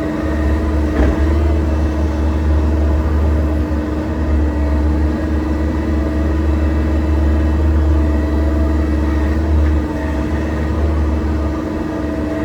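Excavator's diesel engine running steadily while digging, with a steady droning hum and a constant whine above it; a single brief knock about a second in.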